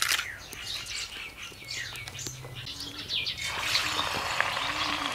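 Birds chirping, with a low call repeating about once a second. About three and a half seconds in, a piece of mustard-coated fish goes into hot oil in an iron wok and starts sizzling loudly.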